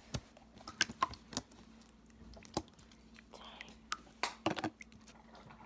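Jiggly jelly slime being pulled out of its jar and handled, giving irregular wet clicks and squelches.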